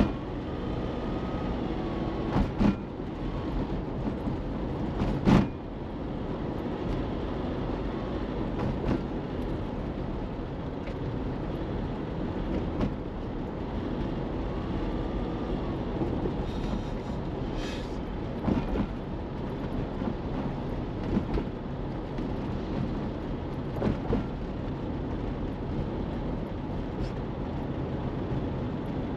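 Car driving on city streets: steady engine and tyre noise, with a few short knocks, the loudest about five seconds in.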